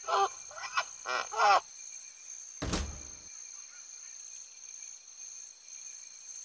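The giraffe's sound in an animal-names sequence: four short, wavering calls in quick succession, followed about a second later by a single thud.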